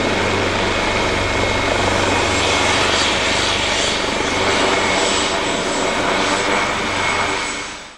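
A helicopter's turbine and rotor running steadily, loud, with a constant high turbine whine over the rotor's low pulsing hum. The sound fades out at the very end.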